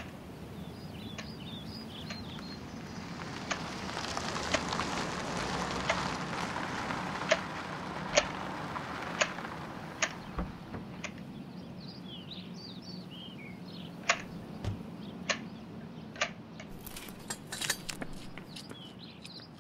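Hand hedge shears snipping through a hedge: about a dozen sharp snips a second or so apart, over a rustle of leaves. Birds chirp faintly, and near the end comes a quick run of clicks.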